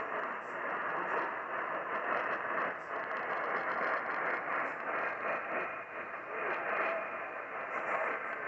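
AM radio static from a receiver tuned to a weak, distant AM station: a steady rushing hiss that wavers slightly in level, the wanted signal overtaken by interference from another station.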